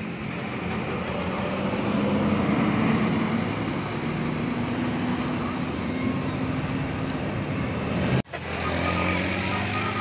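Road traffic on a hill bend. A tour coach's diesel engine runs as it rounds the curve, followed by passing cars and a motorcycle. The sound cuts out for an instant about eight seconds in, then another vehicle's engine takes over.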